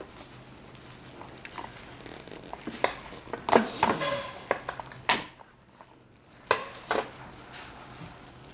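Scissors snipping through king crab shell: a series of sharp cracks and crunches, loudest a few seconds in.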